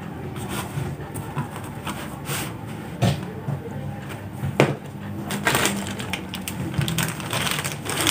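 Hands handling a woven placemat and a plastic mailer bag on a tabletop: irregular rustling and crinkling, with two sharp knocks near the middle and denser crinkling of the plastic bag toward the end.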